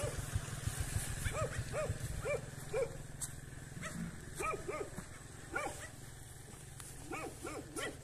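Dog barking in short runs of two to four barks, with pauses between the runs. A low engine putter underneath fades out within the first two or three seconds.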